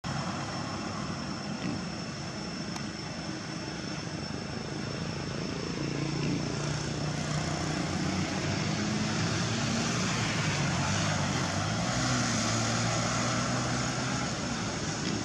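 An engine drone with a low hum whose pitch slowly drifts, growing louder from about halfway through, over a steady hiss and a thin high whine.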